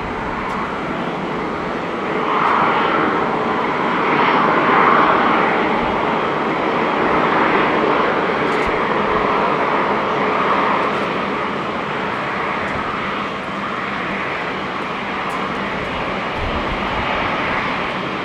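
Airbus A350-900's Rolls-Royce Trent XWB jet engines at takeoff thrust: a steady, loud jet noise that swells a little a few seconds in. There is some wind buffeting on the microphone near the end.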